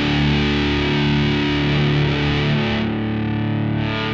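Distorted electric guitar holding a steady chord in a grunge rock song's closing bars. The bright upper hiss drops away about three seconds in and swells back briefly near the end.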